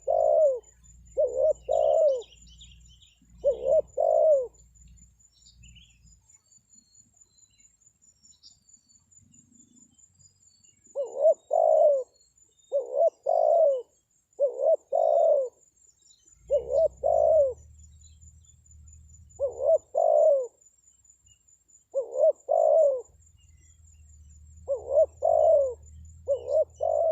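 Spotted dove cooing: short coos, mostly in pairs, repeated in runs. They stop for several seconds after about four seconds, then start again and keep going at a steady pace.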